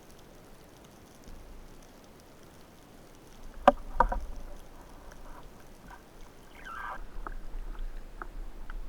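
Water sloshing and splashing around the microphone, with two sharp knocks close together about four seconds in and a low rumble of moving water near the end.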